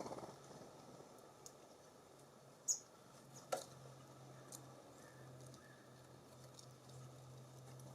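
Small birds at a seed feeder: faint scattered pecking and tapping, with a short high chirp about three seconds in, over a faint steady low hum.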